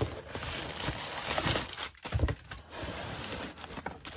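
Packing paper and plastic wrap rustling and crinkling as they are pulled by hand out of a cardboard shipping box, with cardboard flaps scraping. The rustle comes in irregular bursts, with a short pause about two seconds in.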